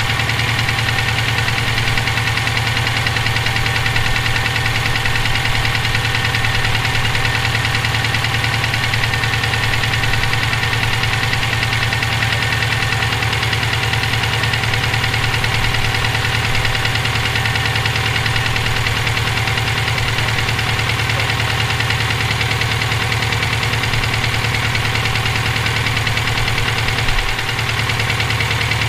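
Subaru EJ257 2.5-litre turbocharged flat-four running steadily with a knocking noise, which the owner suspects could be rod knock, a spun bearing or valve lash needing adjustment. A brief bump near the end.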